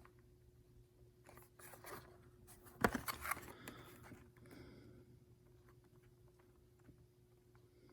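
Cardboard box being handled: light scrapes, rustles and clicks, with a sharp knock and a short flurry of rustling about three seconds in.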